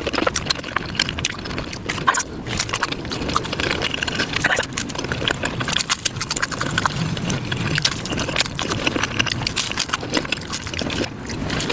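Taco-eating mouth sounds sped up five times: a dense, rapid run of chewing and biting clicks and smacks.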